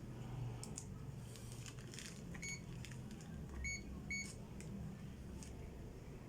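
Digital clamp meter giving short, high beeps, three or four of them in the middle, amid scattered clicks of the meter being handled.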